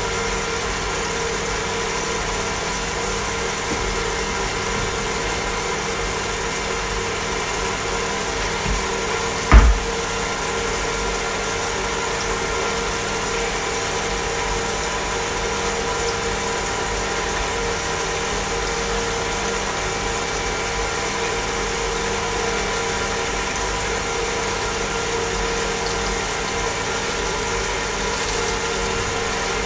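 A tabletop induction cooker runs with a steady hum made of several fixed tones over an even hiss, from its cooling fan and coil, while salmon and green beans cook in a covered frying pan on top. One sharp knock sounds about ten seconds in.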